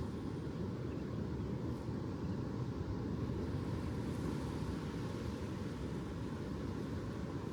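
Ocean surf as a steady, low, unbroken rumble, with no separate wave breaks.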